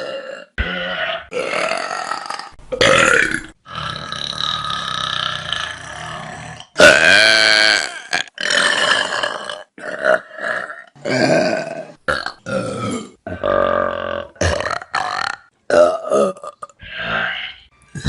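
A string of about a dozen human burps, one after another with abrupt breaks between them; some are short and some are drawn out over two or three seconds.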